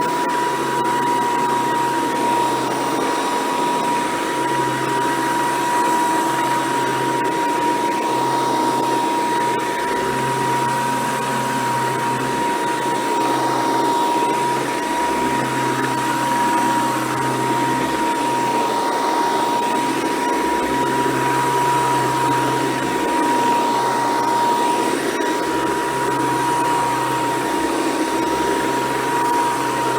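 Hoover Decade 800 convertible upright vacuum cleaner running steadily with a high, even motor whine over the rush of airflow. A lower hum swells and fades every few seconds.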